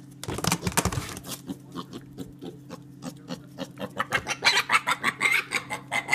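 Piglet grunting and squealing, its hooves tapping and scraping on a plastic storage bin. A run of short, rapid squeals comes over the last couple of seconds.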